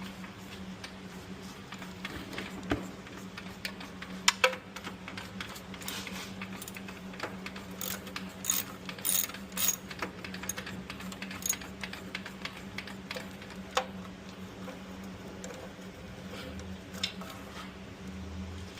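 Irregular metallic clinks and taps of hand tools (wrenches and sockets) working on engine bolts, with a busier run of clinks midway, over a steady low hum.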